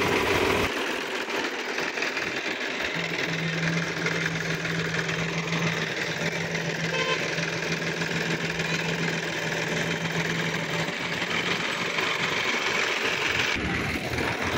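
Sonalika tractor's diesel engine running steadily, heard as an even mechanical hum with a steady low tone through the middle of the stretch.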